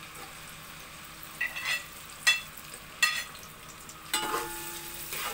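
Sliced onions sizzling faintly in oil in a large metal cooking pot while a metal spoon stirs them, knocking and scraping against the pot several times, each knock with a short metallic ring; the sharpest knock comes a little past two seconds in.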